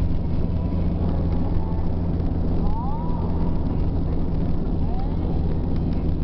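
Steady drone of a moving vehicle's engine and road noise, heard from inside the vehicle, with a couple of brief faint sliding tones about three and five seconds in.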